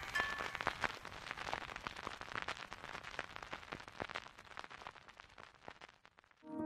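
Crackle effect in the style of an old record: dense, irregular clicks and pops with the last notes of the music dying away at the start, then slowly fading to near silence.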